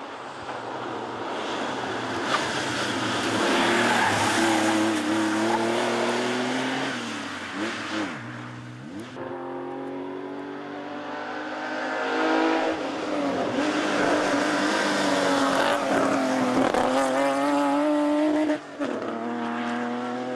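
Rally car engines at full racing throttle, revving up through the gears and dropping back at each shift and under braking, as cars pass at speed on a tarmac stage. The first car is a Porsche 911 with an air-cooled flat-six.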